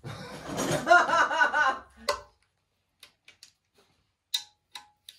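A woman's voice for about the first two seconds, then scattered sharp clicks of a socket ratchet being worked on an engine block, roughly two a second, one louder than the rest a little after four seconds in.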